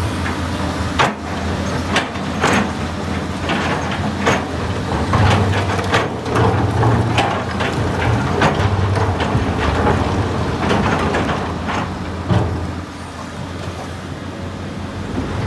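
Heavy diesel engine of an excavator running, revving up and down under load, with repeated sharp metallic clanks and knocks from the machine at work.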